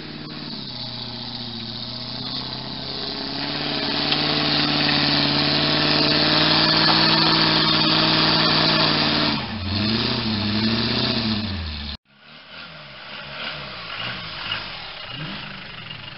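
Off-road 4x4 truck's engine working hard along a muddy track, revs climbing and held high under a wash of tyre and dirt noise, then rising and falling in a few quick blips. After an abrupt cut, another 4x4's engine revs up and down more quietly.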